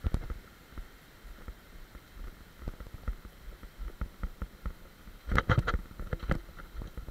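Mountain bike riding down a bumpy dirt trail, rattling and knocking as it rolls over the ground. There is a sharp knock right at the start and a cluster of louder knocks about five and a half seconds in.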